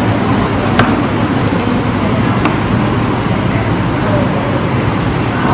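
Steady loud background rumble, with a sharp click about a second in and a fainter one later, as tailor's shears cut through folded fabric.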